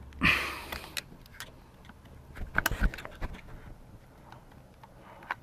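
Hand work on the plastic fuel injector electrical connectors of a Mercedes M272 V6. There is a short rustling scrape just after the start, then a cluster of small plastic clicks and knocks about two and a half seconds in.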